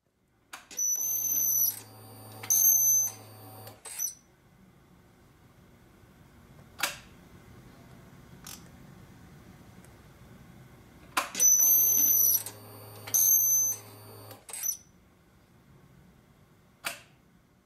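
Suzuki GSX-R1000 exhaust valve servo whirring as it drives the butterfly valve in the exhaust pipe, with clicks as it starts and stops. The cycle runs twice, about ten seconds apart, each time as a pair of high-pitched whirs. Single sharp clicks fall between the two runs and near the end.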